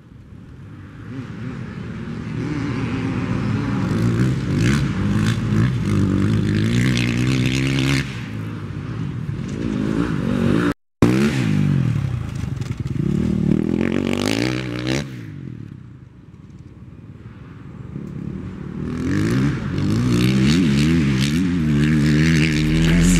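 Off-road dirt bike engines revving hard as riders accelerate past on a dirt track, the pitch climbing and dropping again and again with the throttle and gear changes. The sound cuts out briefly about halfway through, and fades for a moment before another bike comes through.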